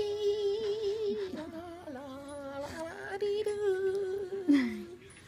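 A man singing long held notes with a wavering pitch, with a second, lower voice sounding alongside for a while in the middle. The notes slide down and fade out near the end.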